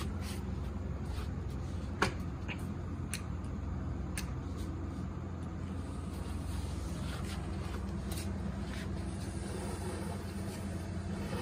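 Chakri ground-spinner firework being lit and burning: scattered sharp crackles and pops, one louder crack about two seconds in, and a faint hiss in the second half, over a steady low hum.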